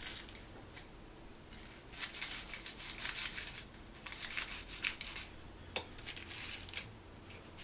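Rolling paper rustling and scraping against a stainless steel cigarette roller as fingers tuck it in behind the tobacco, in several short, soft scratchy bouts.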